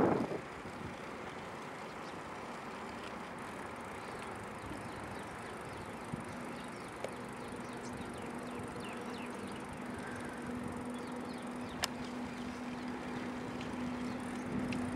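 A car driving, heard from inside: steady road noise with a low, even hum that grows stronger about two-thirds of the way through, and one sharp click near the end.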